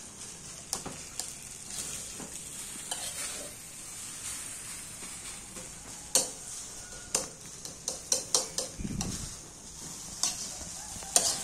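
Fried rice sizzling in a metal pan as it is stirred and turned with a metal utensil. Sharp scrapes and clacks of the utensil against the pan come throughout, several in quick succession in the second half.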